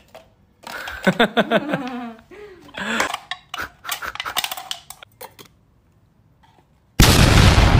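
Scissors cutting into a thin aluminium drink can: scattered sharp metallic clicks and crinkles, after a short laugh about a second in. A sudden loud rush of noise cuts in near the end.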